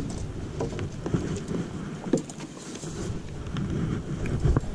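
Wind rumbling on the microphone, with scattered knocks and clicks from a landing net and its pole being handled against a wooden dock railing as a netted carp is lifted in.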